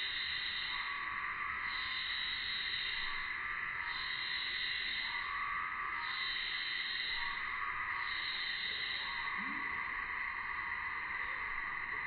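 Summer cicada chorus: a steady shrill buzz, with calls swelling and fading every second and a half to two seconds.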